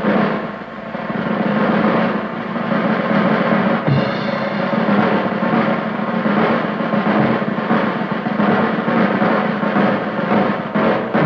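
Background music with drums.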